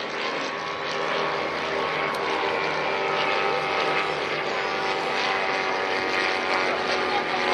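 Propeller engines of replica First World War fighter planes flying over, a steady engine note with even overtones.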